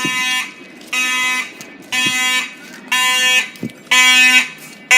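Building fire alarm horn sounding in a steady pulse, about one half-second blast each second, growing louder toward the end. The alarm system has been set off.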